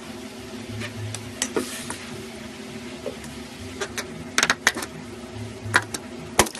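Slime being squeezed and worked, giving scattered sharp clicks and pops, loudest in a quick cluster about four and a half seconds in, over a steady low hum.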